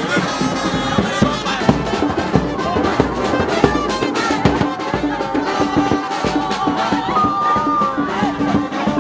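Brass band music: horns playing a tune over a steady drum beat, with a short note repeated over and over in the lower range through the second half.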